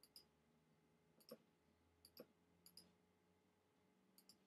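Faint key clicks of an iPhone on-screen keyboard as a registration number is typed: about nine short ticks, several in quick pairs, over near silence.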